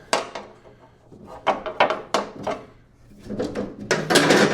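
Canopy shell parts being handled and fitted: a run of sharp knocks and clicks, then a longer scraping clatter near the end.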